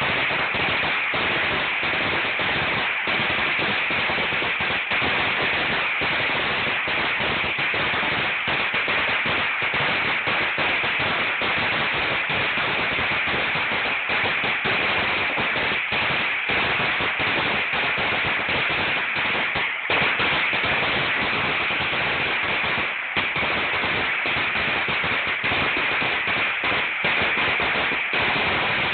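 A 2000-count string of firecrackers burning down its length, going off in a dense, unbroken rattle of bangs too fast to count.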